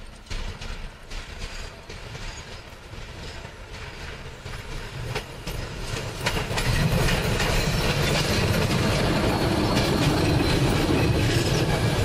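Train running on rails, wheels clattering over the track, growing louder about halfway through as it comes close.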